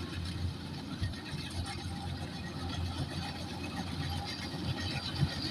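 Kubota DC-105X combine harvester running steadily, its diesel engine a continuous low drone.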